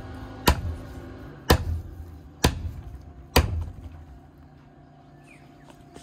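Kailash Blades kukri chopping through sisal rope into a wooden chopping stump: four sharp chops about a second apart, after which the chopping stops.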